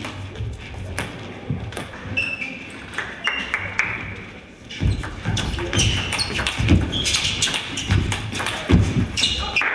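Table tennis rally: the celluloid ball clicks sharply off the rubber bats and the table in quick succession, with short high shoe squeaks and footfall thuds on the sports hall floor.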